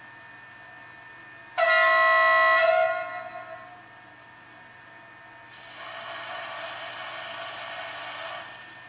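ESU LokSound V4.0 decoder in a Liliput model of a BLS RABe 515 multiple unit, played through the model's small loudspeaker: one loud horn blast of about a second, then after a pause a steady hiss of about three seconds.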